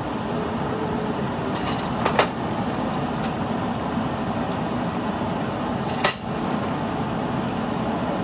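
Steady low kitchen hum, like a running cooker fan, with two sharp metallic clicks about two and six seconds in from a cooking utensil knocking against the pan.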